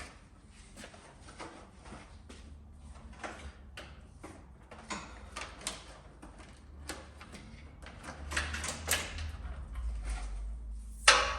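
Scattered clicks, rustles and knocks of an old motorcycle clutch cable being worked free and pulled out past the frame and engine, with a sharp knock near the end.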